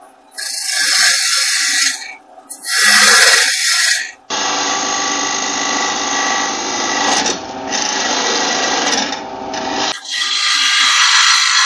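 Half-inch bowl gouge cutting into a spinning wood blank on a lathe, a rough, hissing tear of shavings as the handle is roughed down to size. The cutting comes in several stretches with brief breaks between them.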